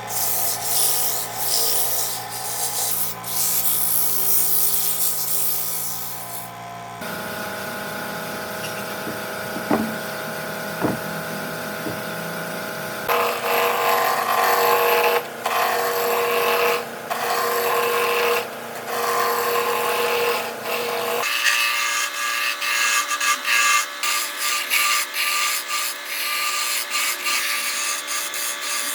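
Wood being worked by hand or with a tool: rubbing and rasping against wood, in several clips that change abruptly about 7, 13 and 21 seconds in, some with a steady machine hum.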